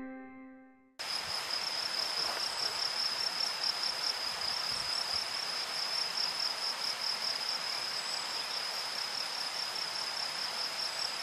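Music fading out in the first second, then a cricket chirping steadily in a fast, even, high-pitched pulse over a constant outdoor hiss.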